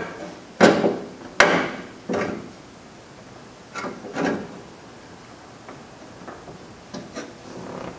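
Metal knocks and clunks from inside a bare steel car door as the window track is worked by hand: two loud knocks about half a second and a second and a half in, then softer ones every second or so.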